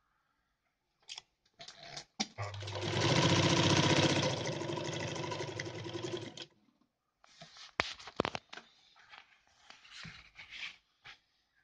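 A Kehler Altenberg sewing machine runs for about four seconds, its motor humming under the fast, even clatter of the needle stitching through twill fabric with thick thread. After it stops there are scattered clicks and rustling as the fabric is handled.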